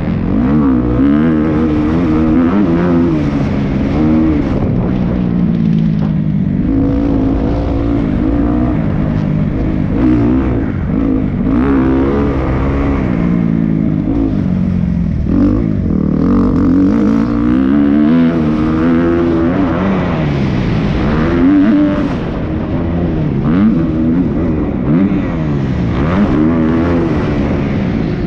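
Dirt bike engine being ridden hard, revving up and falling back over and over, its pitch rising with each burst of throttle.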